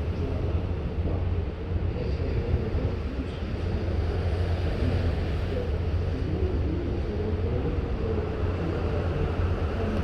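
Steady low rumble with an even hiss over it: wind and ship noise heard on board a ship at sea.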